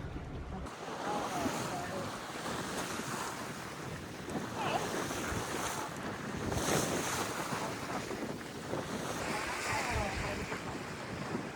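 Wind and water rushing along a sailboat under sail, with wind buffeting the microphone.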